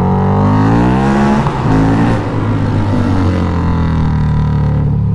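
Harley-Davidson V-Rod's V-twin running through Ground Pounder drag pipes, accelerating hard under an overpass. The revs climb, dip briefly at an upshift about a second and a half in, climb again, then settle into a steady cruise.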